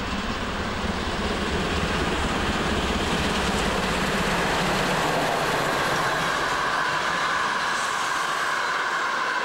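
Steam-hauled express train passing, with a steady rush of rumble and wheel clatter from the coaches. A steady high-pitched tone joins about six seconds in.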